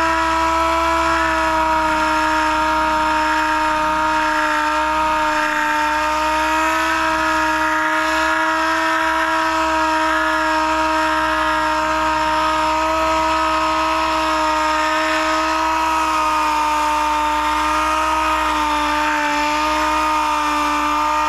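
Power sander running steadily at full speed on a chrome car bumper, a loud, steady whine whose pitch sags slightly near the end.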